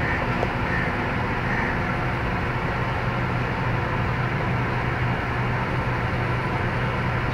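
A steady low hum over a constant haze of background noise, unchanging throughout.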